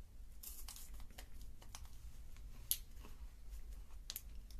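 Quiet crunching and crackling from biting and chewing a chocolate-covered coconut wafer bar, with the crinkle of its plastic wrapper in his hand: scattered sharp clicks, one louder a little past halfway, over a low steady hum.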